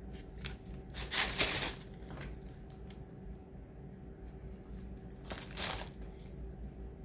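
Tissue paper and plastic packaging crinkling as small items are handled and set into a cardboard box. There are two short rustles, about a second in and again just past five seconds, with light clicks and taps between.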